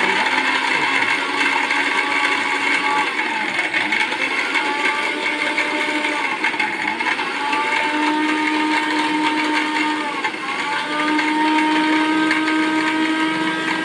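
Philips 750-watt mixer grinder running, grinding coconut pieces to powder in its stainless steel jar. The motor whine dips briefly and picks up again about every three and a half seconds as the pulse setting is worked.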